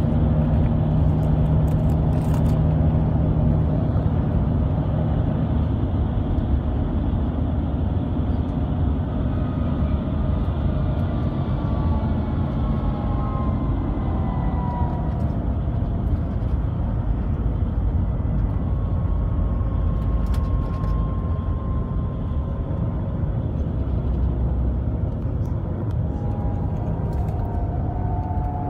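Mercedes-Benz Tourismo coach heard from inside the cabin while driving: a steady engine and road rumble, with faint high whines that slide down in pitch several times from the retarder braking the coach.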